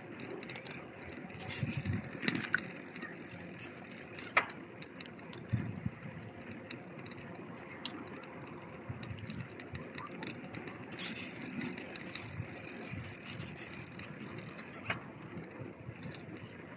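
A bicycle being ridden: a steady rolling noise from the tyres and drivetrain, with scattered rattles and clicks. The freewheel ticks in two spells while coasting, one near the start and one in the second half.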